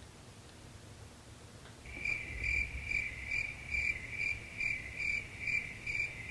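A steady high-pitched trill that starts abruptly about two seconds in and pulses about two and a half times a second.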